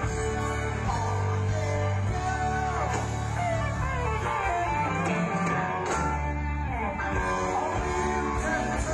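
Live rock band music, with guitar playing over sustained bass notes.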